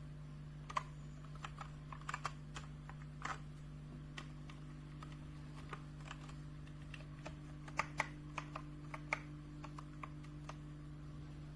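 Keys of a Redragon K617 compact mechanical keyboard being typed in scattered, irregular keystrokes, a few louder clicks about eight seconds in, over a steady low hum.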